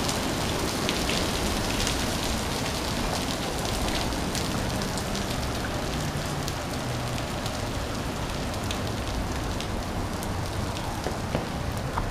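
Steady rain falling on concrete pavement, mixed with many sharp ticks of small hail pellets, about pea size, striking the ground.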